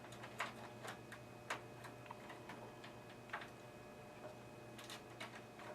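Scattered light clicks and taps of plastic and metal computer parts being handled and fitted back into a desktop computer case, irregular, about one every second.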